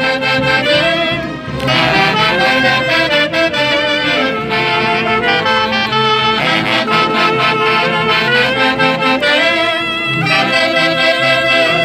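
Festive band music from wind instruments in the Mantaro Valley orquesta típica style, with saxophone-like reeds carrying a melody in repeated phrases. There is a short break in the phrase about a second and a half in, and another near the end.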